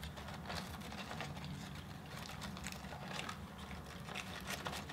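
Quiet eating sounds: irregular small clicks, crackles and rustles from chewing and from handling fast-food burgers, fries and their paper and cardboard packaging.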